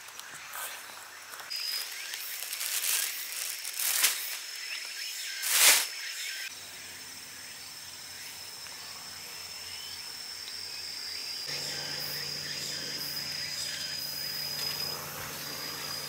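Footsteps crunching through leaf litter and undergrowth, the two loudest about four and six seconds in, over a steady high-pitched insect buzz. After about six and a half seconds the steps stop and only quieter woodland ambience with the insect buzz remains.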